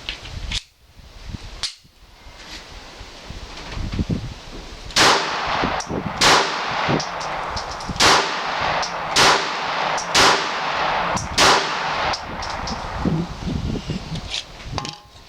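Glock 42 .380 pistol firing Blazer aluminum-case FMJ rounds: about six sharp shots roughly a second apart, beginning about five seconds in, after a few small handling clicks. The pistol feeds and cycles this ammo without a stoppage.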